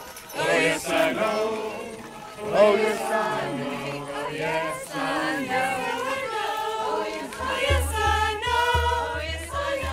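A choir of mixed voices singing without words that can be made out, several voices holding notes together in harmony. A low, regular beat comes in about seven and a half seconds in.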